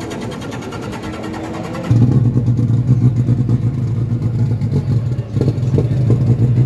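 A motorcycle engine running steadily close by, coming in suddenly about two seconds in, much louder than the fainter engine background before it, and holding a steady low pitch until it cuts off sharply at the end.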